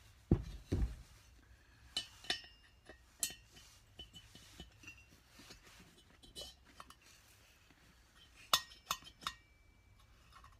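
A BSA Fury aluminium cylinder head is set down heavily on a workbench, giving a couple of dull thumps just after the start. Then come scattered light metal-on-metal clinks as a steel valve is slid into its guide and handled, a few of them ringing briefly.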